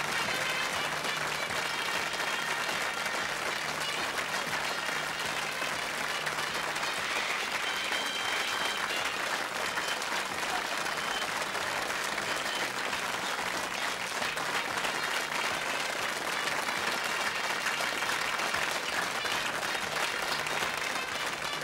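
Sustained applause from an audience clapping steadily throughout, with faint music underneath.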